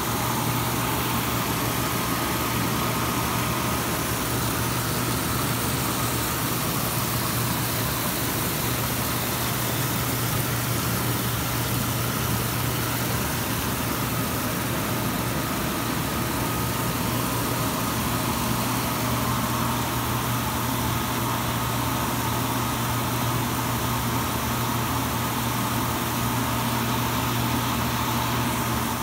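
Artesian Spas South Seas 748B hot tub with its jets running: water churning and bubbling over a steady low hum from the jet pumps.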